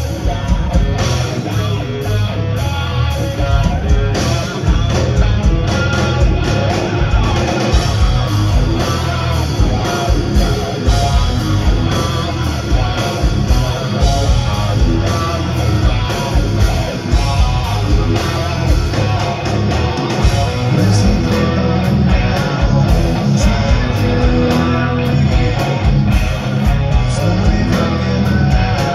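Live heavy rock band playing loud: distorted electric guitars, bass and drums, heard from within the audience.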